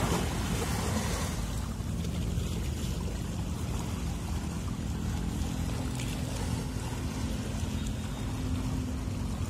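Steady low drone of a ship's engine with a constant wash of water and wind noise, heard from aboard the vessel; a brief gust of wind noise at the very start.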